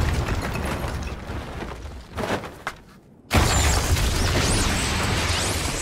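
Anime fight sound effects: a heavy booming impact with crumbling rubble that fades over about three seconds. After a brief silence, a second explosive boom sets off a sustained rumble with high whistling sweeps over it.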